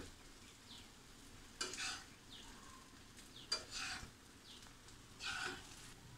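Metal spatula stirring boiled rice into fried shredded vegetables in a wok, scraping the pan in a few short strokes about two seconds apart: mixing the rice through to make fried rice.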